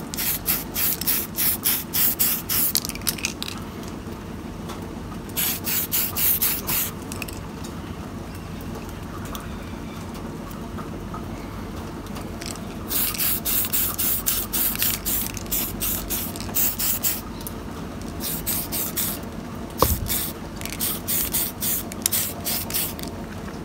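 Tamiya aerosol primer can hissing in short rapid bursts, about three a second, in several runs with a quieter gap of several seconds in the middle, as a first primer coat is misted onto a plastic model engine. A single knock about twenty seconds in.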